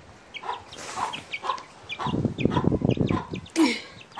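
Chicks peeping in short, repeated high cheeps, with a lower, rougher stretch of hen clucking from about halfway through.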